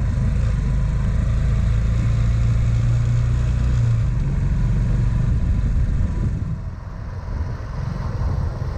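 Motorcycle engine running steadily under the rider while riding, with road and wind noise. The engine note drops in level about six seconds in.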